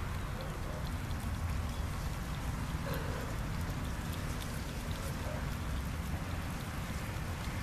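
Cat and kittens eating tuna from a plate: a steady scatter of small wet clicks from chewing and licking, over a constant low rumble.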